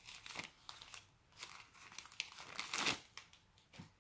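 Soft plastic protective wrap crinkling as hands peel it off a fitness band, in irregular rustles that are loudest about three seconds in, with a last short crackle near the end.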